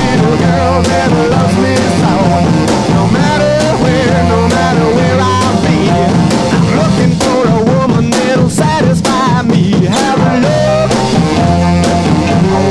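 Background rock music with a steady beat, drums and a melodic lead line.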